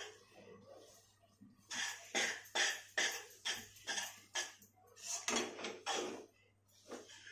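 Slotted spatula scraping and knocking against a non-stick kadhai while stirring a thick, sticky sesame-jaggery mixture. It comes in about a dozen quick strokes at roughly two a second, starting about two seconds in.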